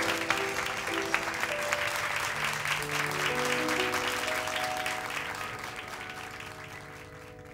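Audience applauding, the clapping slowly dying away, under long held chords from a small jazz band.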